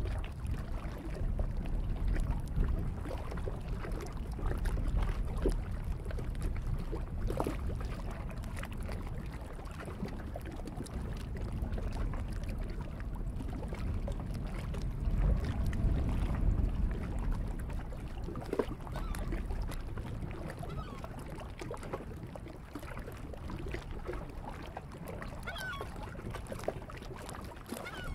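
Lakeshore ambience: a low, gusting rumble of wind and small waves lapping at the rocky shore, swelling twice, with a few faint bird calls near the end.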